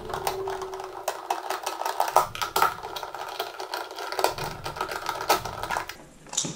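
Ratchet wrench clicking rapidly and steadily as the 8 mm bolts holding a Briggs & Stratton 1650 engine's air filter cover are backed out.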